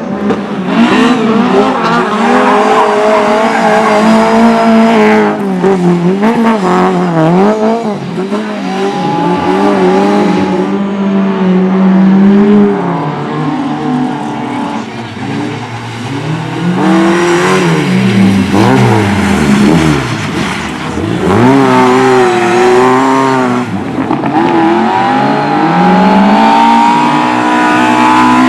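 Several single-cylinder speedway motorcycle engines racing on a cinder track, loud throughout, their pitch rising and falling again and again as the riders throttle on and off through the bends.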